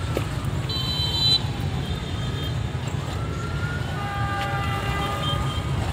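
Waiting motorbike and car traffic idling in a steady low rumble, with a short high-pitched horn toot about a second in. A faint tone rises and falls slowly in the background, like a distant siren.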